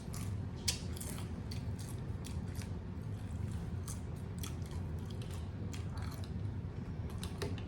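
Close-miked chewing of nacho chips with Rotel cheese dip: a run of irregular sharp crunches and wet mouth sounds, over a steady low hum.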